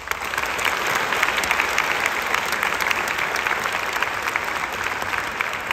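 Audience applauding. It starts right away and holds steady as a dense run of many hands clapping.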